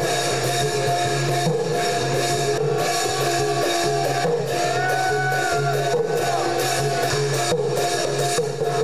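Music with a steady drum beat and sustained instrumental tones.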